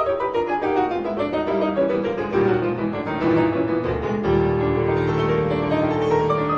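Background music led by piano, a flowing run of notes with a steady pace.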